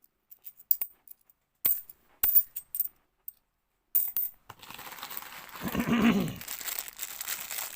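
50p coins clinking together as they are handled and set down, a scatter of sharp clicks. After about four seconds a plastic coin bag starts crinkling and rustling, with a brief low-pitched sound about two seconds later.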